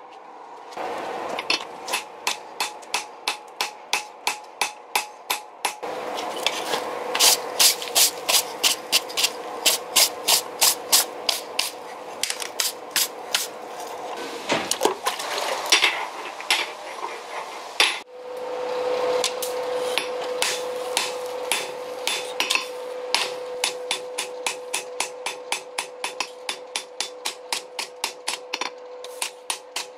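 Hand hammer striking a leaf-spring steel cleaver blade on an anvil, forging it with steady blows about two to three a second, a steady ring sounding beneath the blows. The rhythm breaks off and restarts about six and eighteen seconds in.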